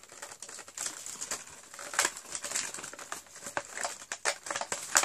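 Cardboard advent calendar box and its packaging being handled: irregular crinkling with quick clicks and taps.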